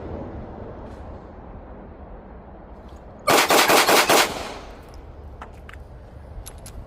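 A compact Smith & Wesson M&P Shield Plus pistol fired in a rapid string of five shots, all within about a second, a little past the middle. A few faint clicks follow.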